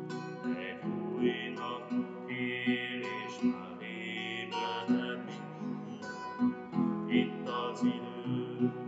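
Acoustic guitar strummed in a steady rhythm, about two strokes a second, accompanying a man singing a hymn.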